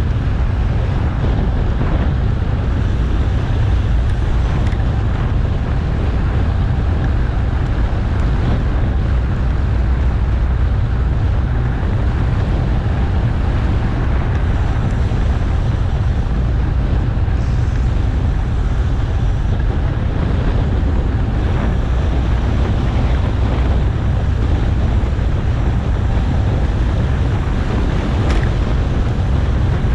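Steady wind noise buffeting an action camera's microphone while cycling at speed: a loud, even low rumble with no breaks.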